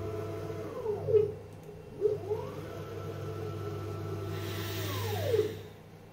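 Stepper-driven Z axis of a ZX7045 CNC mill conversion traversing: the motors' whine holds a steady pitch, then falls away as the axis decelerates to a stop about a second in, with a click or two. After a short pause the whine rises again as the axis accelerates, holds, and ramps down near the end, over a steady low hum.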